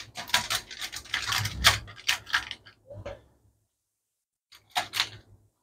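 Aluminium foil lining a baking pan crinkling and crackling as thin slices of raw potato are laid into it, a dense run of small clicks and rustles for about three seconds, then a short burst again near the end.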